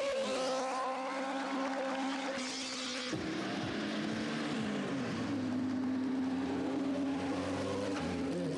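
Sport motorcycle engine held at steady high revs while the bike is ridden on its rear wheel, then dropping to a lower, steady pitch about three seconds in.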